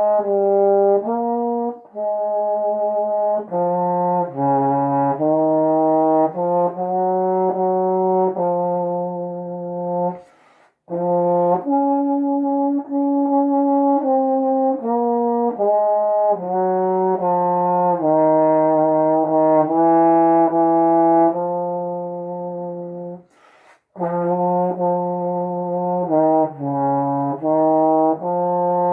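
Solo trombone playing a slow hymn melody in sustained, legato notes, pausing twice for breath, about a third of the way in and again near the end.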